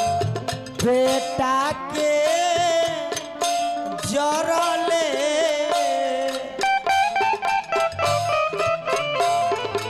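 Live Indian folk music for a nirgun: tabla strikes under a long held, wavering melody line.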